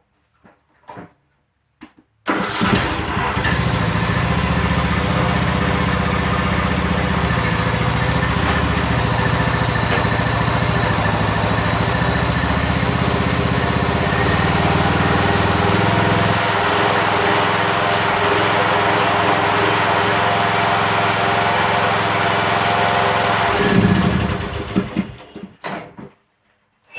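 Riding lawn mower's engine catching abruptly a couple of seconds in, running steadily for about twenty seconds, then shut off near the end and running down over a second or two. A few light knocks come just before it starts.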